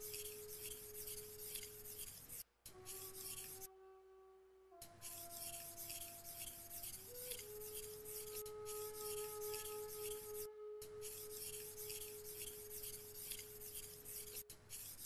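Japanese kitchen knife blade stroked back and forth on a #1000 water whetstone, a faint scraping in a quick, even rhythm, the blade being honed after coarse grinding. Soft held tones sound underneath, and the sound cuts out briefly twice.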